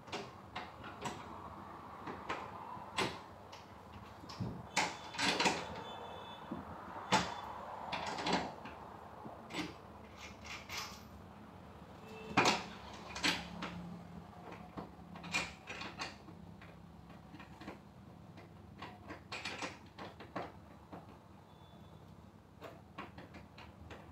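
Irregular knocks, clicks and short scrapes from hand work on a wooden box bed frame, its parts and fittings being handled and fitted.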